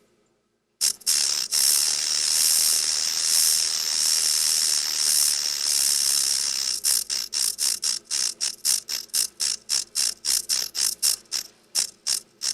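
Rattlesnake shaking its tail rattle. After a short silence comes a steady, hissing buzz for about six seconds, which then breaks into quick separate bursts, several a second, until it stops.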